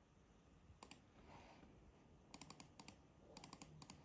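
Faint clicks of laptop keys being pressed, a pair about a second in, then small clusters of quick clicks over the second half.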